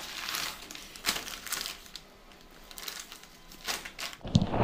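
Paper mailer bag and plastic polybag crinkling and rustling in irregular bursts as a packed shirt is handled and slid out, with a quieter pause about halfway through.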